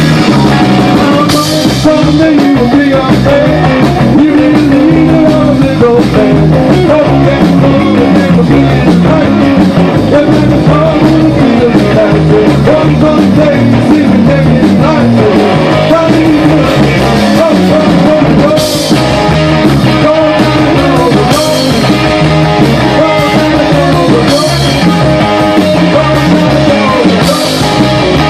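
Live rock band playing loudly: electric guitar, electric bass and drum kit, with cymbal crashes now and then.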